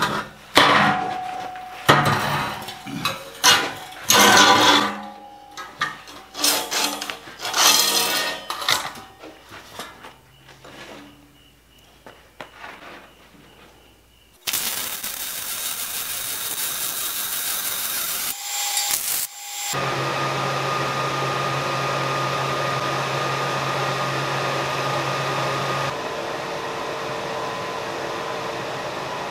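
Steel tubing clanking and knocking as a frame is handled on a steel welding table. About halfway through comes a few seconds of steady welding-arc hiss, then a steady running noise with a low hum.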